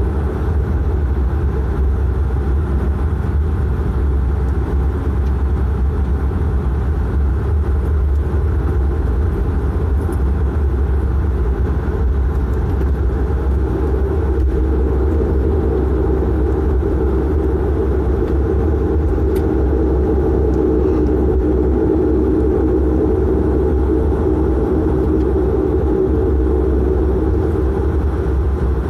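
The Pratt & Whitney Canada PW150A turboprop engines and propellers of a De Havilland Canada Dash 8-400 running with a steady low drone, heard inside the cabin as the aircraft taxis.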